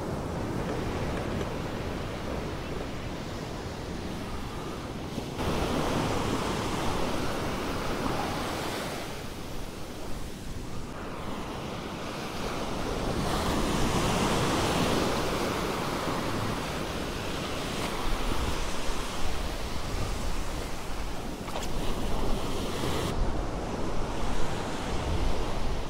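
Ocean surf breaking and washing up the beach, swelling and fading as each wave comes in, with some wind on the microphone.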